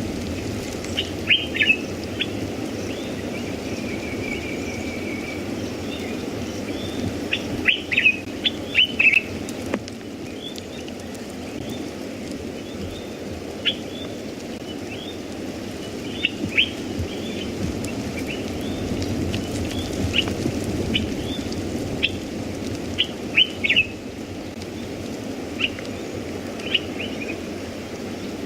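Wild birds calling in scattered short chirps and quick sweeping notes, with a brief trill about four seconds in and busier clusters around eight and twenty-three seconds, over a steady low rush of wind.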